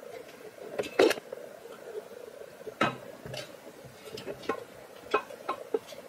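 Metal loft ladder clanking and knocking as someone climbs down it through the attic hatch. One loud clank comes about a second in, followed by a run of lighter knocks.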